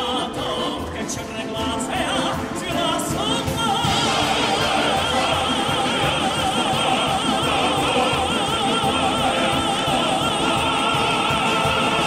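Male tenor soloist singing with a military ensemble of bayan accordions, orchestra and male choir. About four seconds in he takes a long high note with a wide vibrato and holds it over the full ensemble.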